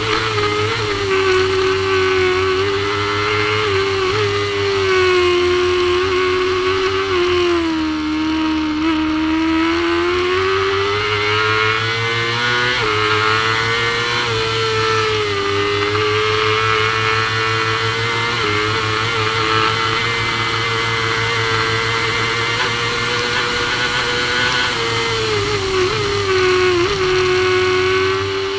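Supersport racing motorcycle engine held at high revs at speed, heard onboard with wind rushing past. The engine pitch sags a little about seven seconds in and near the end as the rider eases off, then climbs back under throttle.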